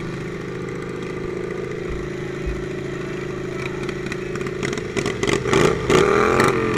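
Racing lawnmower's small engine running steadily, then from about five seconds in louder, its pitch rising and falling as the throttle is worked, with a few knocks and rattles.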